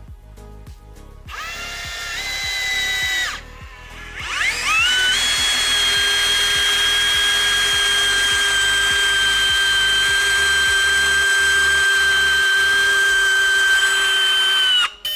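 Festool CXS/TXS 12 compact cordless drill driver, with a brushless motor, driving a 200 mm No. 6 screw into timber. The motor whines in a short first run and stops briefly, then holds a steady high whine for about ten seconds without bogging down as the screw goes fully home, and cuts off near the end.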